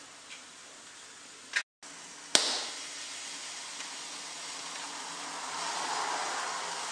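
Liquid egg whites pouring from a carton into a plastic measuring jug: a soft, steady stream that grows a little fuller near the end. It is preceded by a single sharp click about two seconds in.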